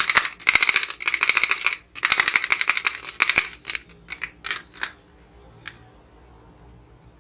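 Yellow plastic clapping-bubble toy clacking rapidly, a fast run of plastic clicks that breaks briefly about two seconds in. It slows to a few separate clacks and stops about five seconds in, with one last click near six seconds.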